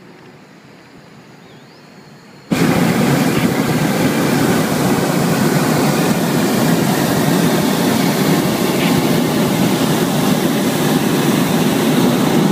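Hot air balloon's propane burner firing: a loud steady roar that cuts in suddenly about two and a half seconds in and holds for about ten seconds.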